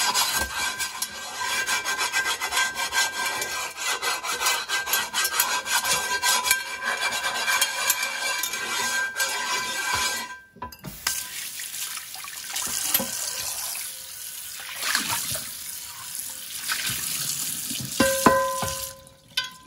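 Stainless steel chainmail scrubber scraping over a wet, seasoned cast iron skillet in rapid back-and-forth strokes for about ten seconds. After a short break it carries on more unevenly with water in the pan, and near the end come a few knocks with a short ringing tone.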